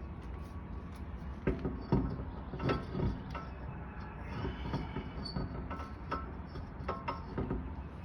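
Hydraulic car jack being pumped to raise the car a little higher: a series of irregular metal clanks and clicks, loudest between about one and three seconds in.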